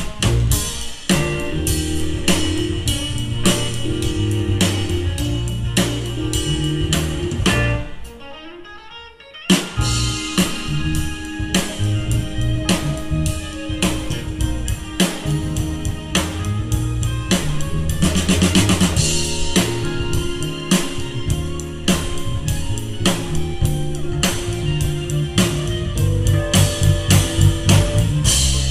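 A live band of electric guitar, bass guitar, keyboards and drum kit playing a funk instrumental. About eight seconds in the band drops out for a second and a half, then comes back in together.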